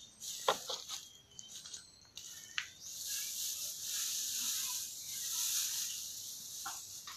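Dry cogon grass rustling with a steady high hiss as it is handled, starting about three seconds in. Before that come a few short high chirps and clicks.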